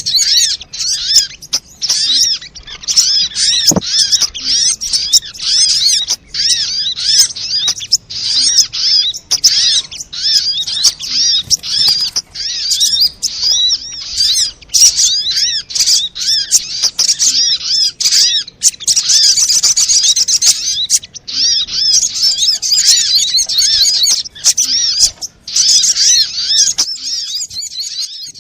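Sogon (sogok ontong) bird calls in a lure recording: rapid, high-pitched twittering chirps repeated almost without pause, broken by a few short gaps.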